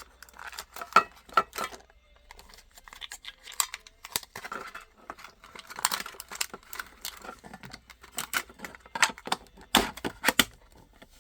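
Hard plastic packaging crinkling and clicking, with small knocks and rattles, as a diecast toy car and its plastic shell are handled, in irregular clusters with the loudest handling about halfway through and again near the end.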